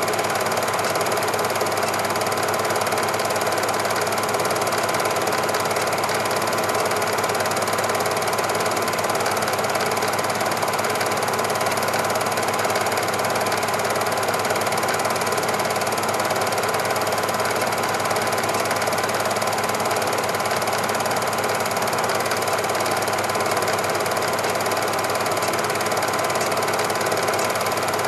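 Cine film projector running with a steady, rapid mechanical chatter.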